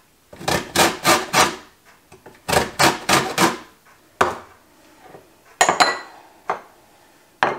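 A lemon rubbed up and down a stainless steel box grater, zesting the rind: two runs of four quick rasping strokes, about three a second, in the first three and a half seconds. Then a few separate knocks and light clinks, the sharpest near the end.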